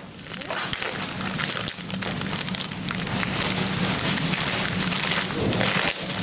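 Plastic vacuum-bagging film crinkling and crackling continuously as it is pulled and peeled away from the sealant tape around a cured composite layup.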